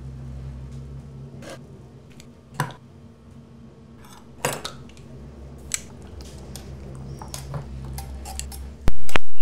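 Steady low electrical hum from a home-made electronic circuit, with scattered small clinks and taps as wires and metal tools are handled on the bench. Near the end comes a sharp click, and the circuit's output turns suddenly much louder.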